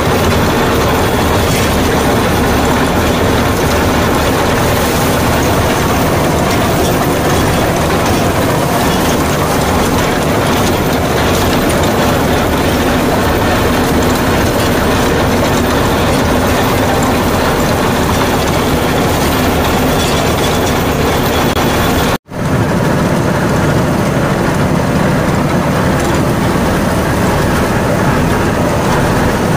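Deutz-Fahr Agrolux 80 tractor running steadily under load while a Shaktiman Tusker rotavator churns soil and banana stubble behind it, a dense mechanical rattle. The sound cuts out for an instant about three quarters of the way through, then resumes the same.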